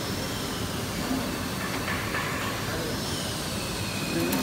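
Steady machinery hum and hiss of a factory hall, with a faint high-pitched whine drifting slightly in pitch.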